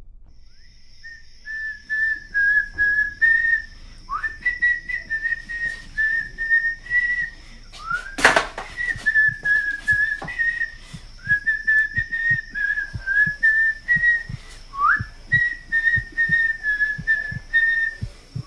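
A person whistling a slow, wandering tune in short phrases, now and then sliding up into a note, over faint low knocks. A sharp loud hit comes a bit before the middle.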